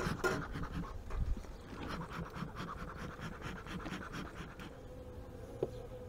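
Bee smoker's bellows pumped in a quick run of breathy puffs, stopping about three-quarters of the way through. A faint steady buzz of honeybees runs underneath.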